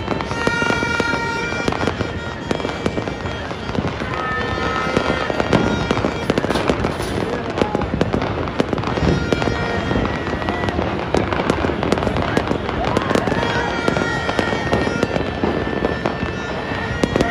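Many fireworks and firecrackers going off at once across a city, a dense, continuous crackling and popping with no single standout bang. Short steady high tones come and go over the crackle.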